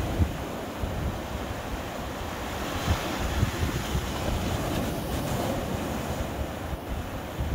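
Small sea waves breaking and foam washing up over a sandy shore, a steady surf hiss that swells for a few seconds mid-way. Wind buffets the microphone with a low rumble throughout.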